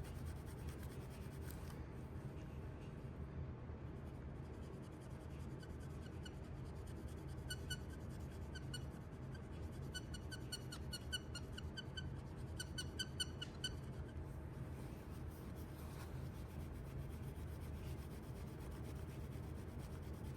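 Dry-erase marker rubbed back and forth over the printed tampo on a die-cast toy truck to lift it, the tip squeaking in quick runs of short high squeaks through the middle, over a steady low hum.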